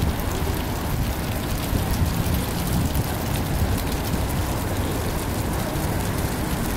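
Steady rushing noise of wind buffeting the microphone outdoors, with an uneven low rumble and an even hiss over it.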